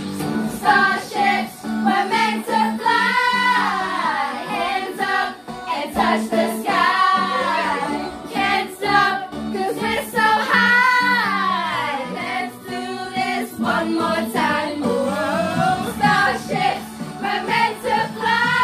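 Music with several voices singing a melody together, in long held, sliding notes over a steady low accompaniment.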